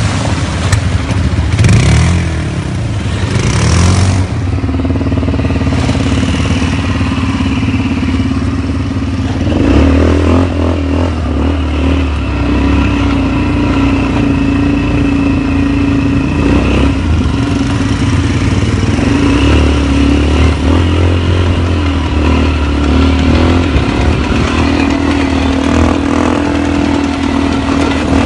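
ATV (quad bike) engines running as the machines ride along a rough trail, the engine note swelling now and then with the throttle. In the first few seconds water splashes as they wade through a shallow stream.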